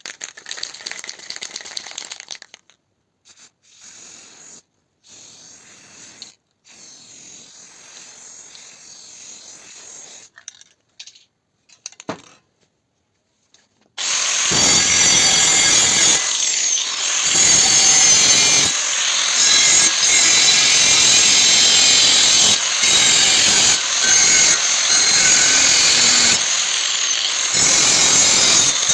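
Power tool working steel, a loud, continuous grinding sound from about halfway in, broken by frequent short cuts. Before it come quieter, intermittent workshop sounds.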